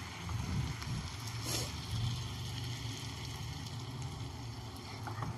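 Water poured from a glass into a non-stick pan of cooking vegetables, over a low steady rumble.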